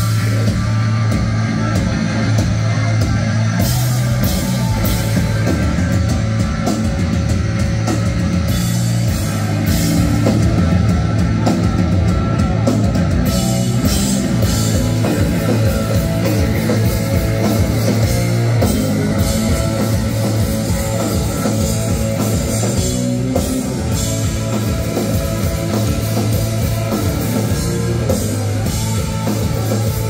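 Live hardcore punk band playing loud and fast: distorted electric guitars, bass and a driving drum kit.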